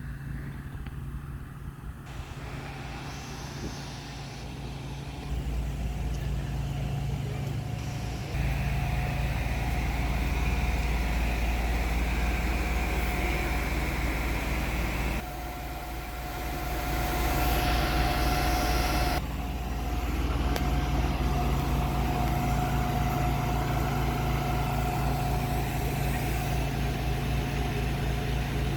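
Fire engine's engine running steadily with a steady whine over it. The sound jumps abruptly in level and tone a few times.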